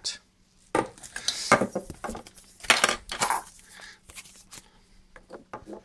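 Hard plastic parts of a Fluidmaster toilet fill valve being handled and knocked on a stone worktop: irregular clicks and clatters, the loudest about one and a half and three seconds in.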